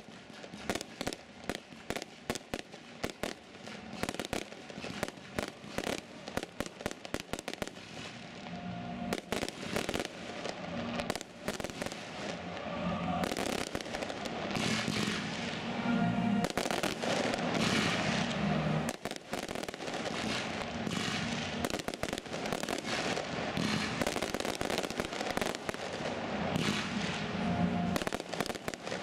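Fireworks display: a fast run of sharp bangs and crackles for the first several seconds, thickening from about eight seconds in into a dense, continuous crackle of bursting shells, with music playing underneath.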